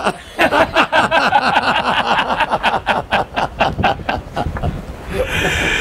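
Men laughing heartily after a joke: a fast run of loud, breathy laughs that goes on for several seconds.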